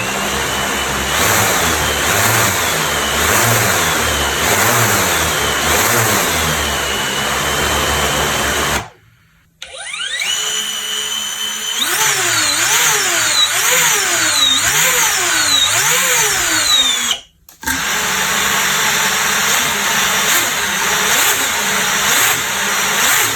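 Quadcopter drone motors and propellers whining, heard as three separate recordings joined by short silences about nine and seventeen seconds in. In the middle one the whine climbs as the motors spin up, then rises and falls in pitch over and over, about once a second; the other two waver more gently.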